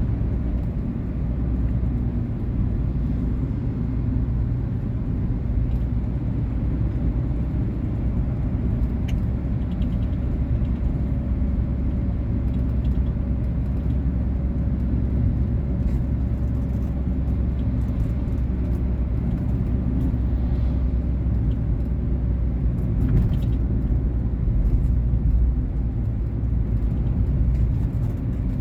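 Volkswagen Polo Vivo on the move: steady engine and road rumble with a faint steady hum. It grows a little louder about three quarters of the way through.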